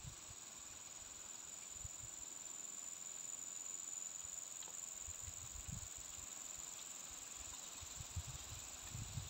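Steady high-pitched drone of insects, with faint low rumbles on the microphone now and then.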